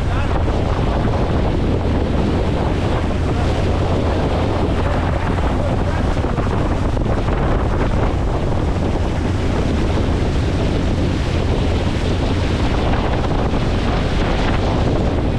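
Wind buffeting the microphone over a motorboat running steadily underway, with water rushing past the hull; the level stays even throughout.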